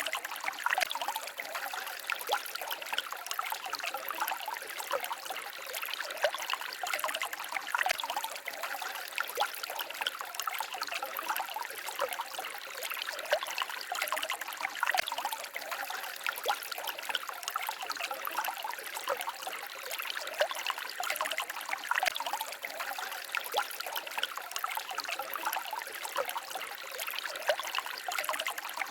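Small forest stream babbling and trickling: a steady run of water with many small, quick splashes.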